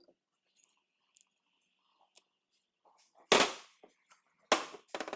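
A few faint clicks, then two loud sudden bangs a little over a second apart, each trailing off briefly, with a smaller tick between them.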